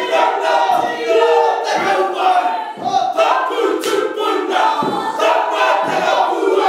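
Māori haka: a group of men and women chanting and shouting in unison, with a heavy beat about once a second.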